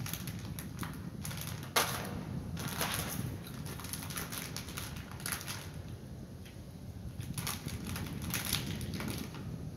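Irregular crinkling and crackling of a small wrapper or packet worked in the hands, with one sharp crack about two seconds in.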